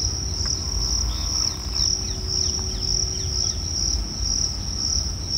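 Crickets or similar insects trilling steadily in a high, pulsing band. A low rumble runs underneath, and a few faint short descending chirps come in the middle.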